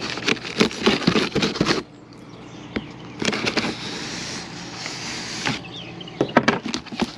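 A folding knife slitting the packing tape along the seam of a cardboard box: one long rasping slice from about three seconds in to about five and a half. Before and after it, crackling and clicks of the tape and cardboard being handled.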